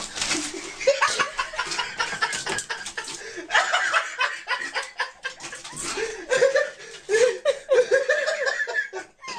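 A person laughing in quick, repeated high-pitched bursts.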